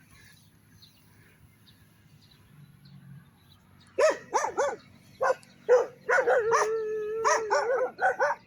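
A dog barking in a quick run of high-pitched yaps that starts about halfway through, with one longer drawn-out yelp in the middle of the run.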